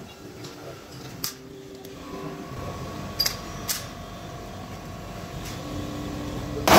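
Sharp metallic clicks of a locally made pistol being handled and readied, then a single pistol shot near the end that rings off the surrounding brick walls.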